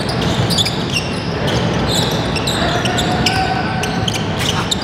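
Basketball game play on an indoor court: a ball bouncing on the floor as repeated sharp knocks, mixed with short high shoe squeaks and a background of voices in the hall.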